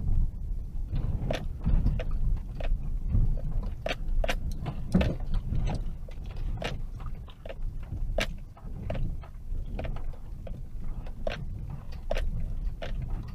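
Car driving slowly over a rough dirt road, heard from inside the cabin: a low road rumble with frequent irregular knocks and rattles as the vehicle jolts over the bumps.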